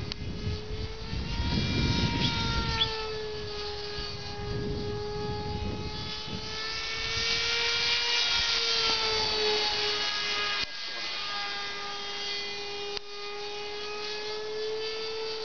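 Radio-controlled model airplane's engine droning steadily in flight, its pitch wavering slightly up and down as the plane manoeuvres. A low rumble of wind on the microphone in the first few seconds.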